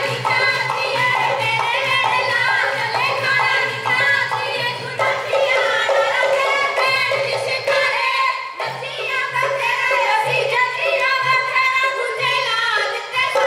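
Women singing a Punjabi folk song in chorus into microphones over steady musical accompaniment, the singing for a giddha dance.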